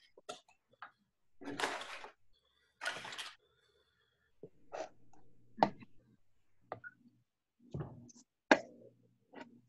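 Cream cheese packages being opened, with two short rustles of the wrappers, then a few light knocks and plops as the cream cheese goes into the food processor bowl.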